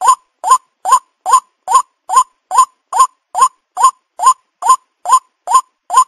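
White-breasted waterhen (ruak-ruak) calling: a steady, even run of short identical notes, about two and a half a second, each sweeping upward, with dead silence between them.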